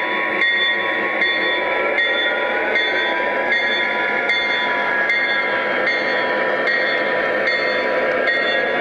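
O gauge model train of Conrail EMD GP30 diesel locomotives running past, with a steady running sound and held tones. A sharp click, about one every three-quarters of a second, comes as the wheels cross the track joints.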